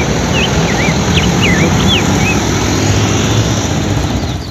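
Steady road noise as a Mitsubishi Fuso fuel tanker truck drives past on a street.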